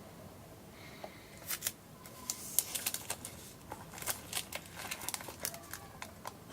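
Hands handling a phone box and its packaging: after about a second and a half of quiet, a run of short sharp crinkles and clicks.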